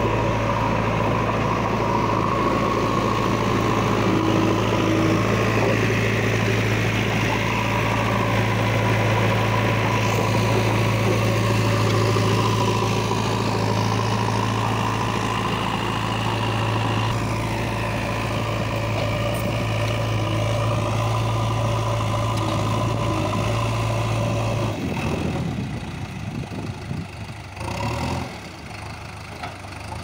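JCB 3DX backhoe loader's diesel engine running steadily as the machine drives with its front bucket lowered, scraping dry soil. About 25 seconds in the engine sound drops abruptly and becomes quieter.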